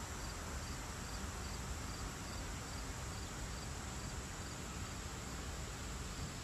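Outdoor ambience: an insect chirping in short high pulses about twice a second over a steady hiss.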